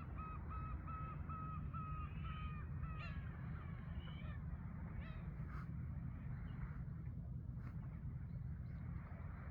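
A bird calling: a quick run of about seven short, evenly spaced calls in the first three seconds, then a few scattered calls, over a steady low rumble.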